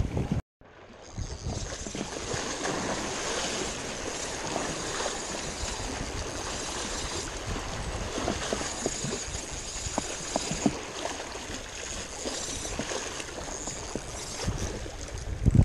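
Small sea waves lapping and sloshing against the rocks at the water's edge, a steady wash with a few small clicks. The sound drops out for a moment about half a second in.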